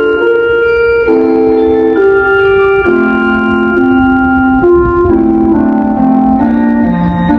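Municipal disaster-prevention radio chime: a slow melody in electronic-organ tones, each chord held about half a second to a second before stepping to the next, over a low rumble.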